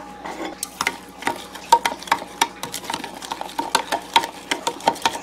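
A small metal spoon clinking and tapping against containers as spices are scooped and added, many light irregular clicks, some with a short ring.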